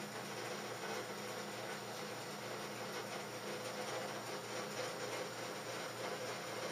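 Sump pump running, a steady motor hum with a hiss over it.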